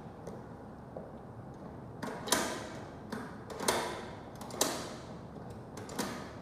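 Smart door lock's interior centre lever turned by hand four times, each turn a short rasping slide ending in a sharp click as the mortise bolt is thrown or drawn back.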